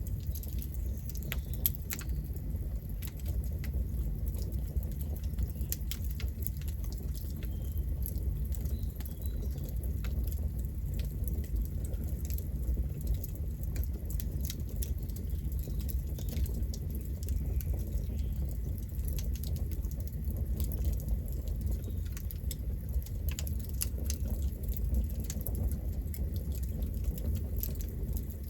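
Campfire burning: a steady low rumble of the flames with many small, sharp crackles and pops scattered all through.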